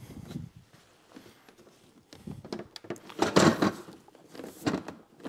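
Hands pressing and working a plastic LED trunk light strip onto a motorcycle trunk lid: a few scuffs and knocks of fingers on plastic, the loudest about three and a half seconds in.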